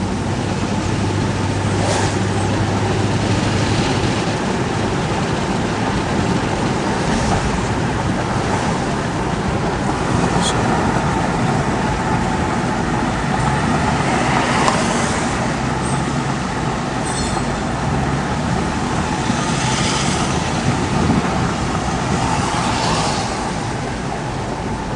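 Steady road and traffic noise, with several louder swells of hiss through it.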